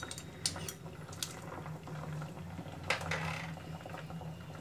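Chopped vegetables boiling in water in an open stainless-steel pot, with a few light clicks and a short scrape of a metal ladle against the pot.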